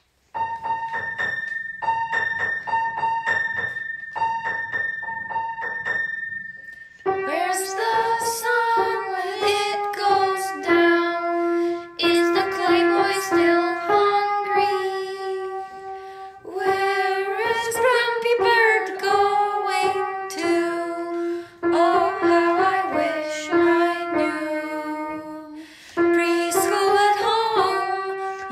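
Background music: for about seven seconds a steady run of repeated high piano notes, then a song sung over piano accompaniment.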